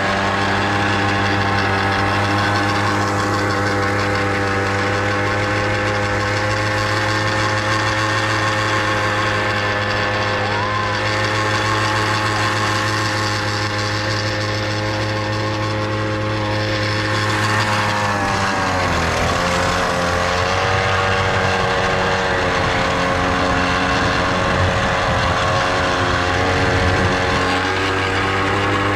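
Small petrol engine of a mini garden tiller (cultivator) running steadily. About two-thirds of the way through its speed dips and stays lower, then picks up again near the end.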